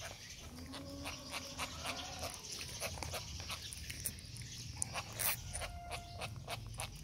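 Baby monkey chewing and smacking on a piece of fruit jelly: a steady run of quick, wet mouth clicks and smacks.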